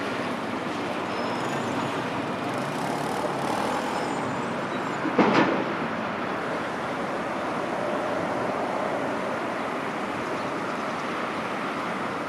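Boeing 777-300ER's GE90 turbofan engines running as the airliner rolls along the runway, a steady even rush of jet noise. A brief sharp knock stands out about five seconds in.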